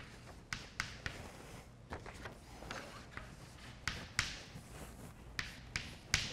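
Chalk writing on a blackboard: a series of sharp taps as the chalk strikes the board, with short scratchy strokes in between, about a dozen in all.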